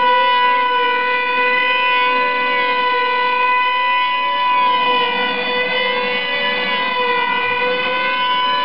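Two F2D control-line combat models' small two-stroke glow engines running flat out, a loud, steady, high whine. One pitch holds steady while the other wavers up and down every second or so as the models circle the pilots.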